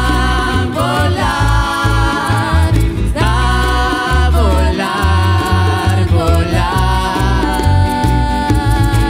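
Live band playing a song, with sung vocal phrases held over a pulsing bass line.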